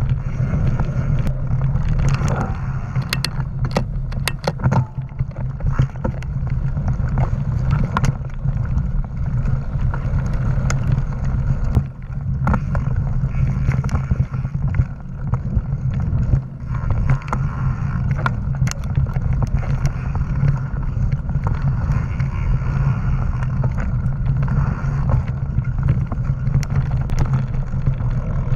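Mountain bike riding fast on dirt singletrack: steady wind rumble on the microphone and tyre noise, with scattered sharp clicks and rattles as the bike goes over bumps.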